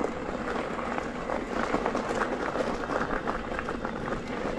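Bicycle rolling over a rough dirt and grass path: a steady rumble of tyres with many small clicks and rattles.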